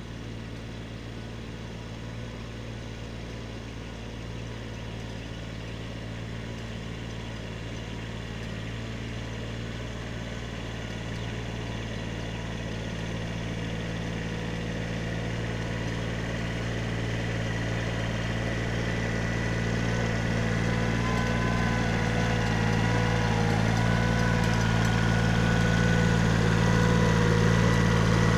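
Kubota B7100 compact tractor's small three-cylinder diesel running steadily as it drives up, growing louder as it approaches. A higher whine becomes audible in the last third as it comes close.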